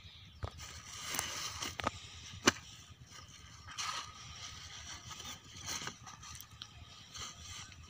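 Rustling and scraping of dry sheets and stalks being handled and stacked, with scattered sharp clicks, the loudest about two and a half seconds in.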